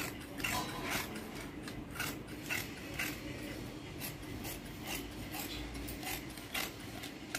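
Large tailoring scissors cutting through folded saree cloth in a series of short snips, about two a second.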